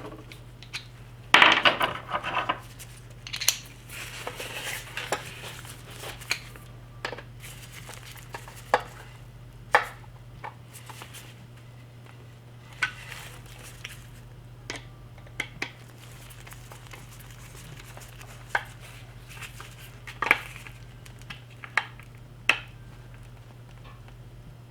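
Scattered metal clinks and clicks of a flathead screwdriver and a steel butt plate with its screws being handled and fitted to a Mosin-Nagant rifle's wooden stock, the loudest cluster about a second and a half in, over a steady low hum.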